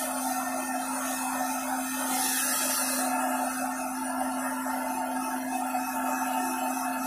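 Handheld electric hair dryer running steadily on one setting, a constant motor hum under the rush of blown air, as it dries a wet cat's fur.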